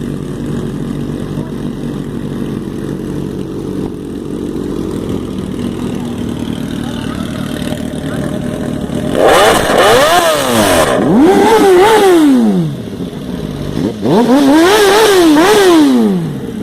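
Chevrolet Omega's six-cylinder engine idling steadily, then revved hard in a string of blips from about nine seconds in, its pitch sweeping up and down. It drops back to idle briefly near thirteen seconds before two more revs.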